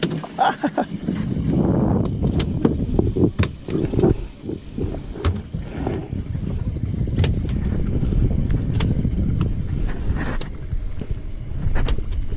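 Low rumbling wind and boat noise on a body-worn camera's microphone, with scattered knocks and rubbing against the camera as it is covered and moved.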